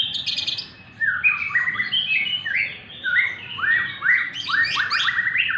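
Murai batu (white-rumped shama) singing: runs of quick, slurred whistled notes in several phrases, with short breaks about a second in and near three seconds.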